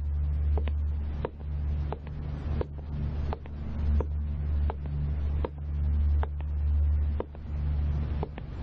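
A steady low rumbling drone that swells and dips, with soft footsteps on a hard floor ticking about every two-thirds of a second.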